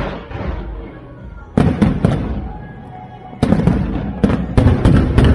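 Aerial fireworks bursting in sharp bangs: a couple about a second and a half in, then a rapid string of bangs through the second half, with music playing underneath.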